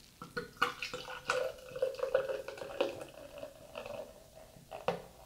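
Beer glugging out of a glass bottle into a glass beer mug, gurgling and splashing unevenly as the mug fills with foam.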